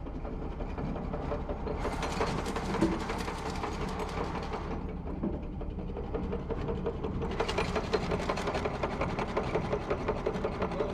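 Small belt-driven rock crusher in an old ore mill running, a rapid, even mechanical clatter, with sharper, brighter clatter at about two seconds in and again from about seven seconds.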